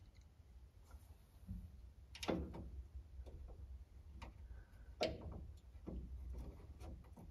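Scattered small metallic clicks and light knocks of a screwdriver and screws being handled and fitted at a car's dash panel, the two loudest about two and five seconds in.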